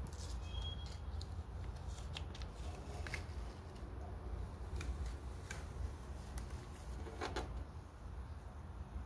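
Vinyl sticker decal being peeled, giving irregular small crackles and ticks over a steady low rumble.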